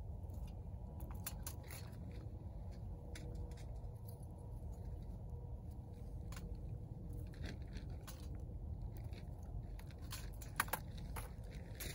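Small wood fire catching in a titanium twig stove while sticks are pushed in, giving irregular sharp crackles, snaps and clicks, one sharper snap a little after ten seconds. A low steady rumble lies underneath.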